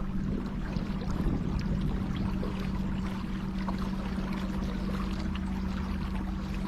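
Electric motor of a battery-powered kayak humming at a steady pitch, with water splashing and trickling against the hull.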